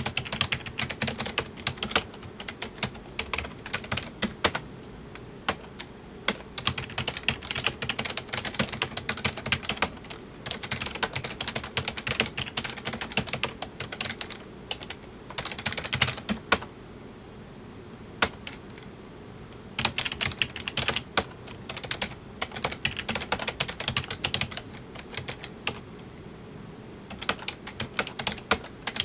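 Typing on a full-size PC keyboard: rapid runs of key clicks with brief pauses, the longest a lull of about two seconds past the middle.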